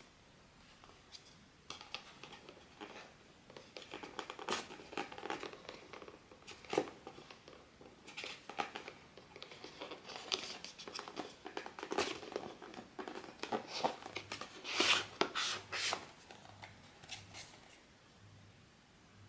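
Blind-box packaging being handled and opened by hand: irregular crinkling, tearing and rustling with sharp clicks, loudest about fifteen seconds in.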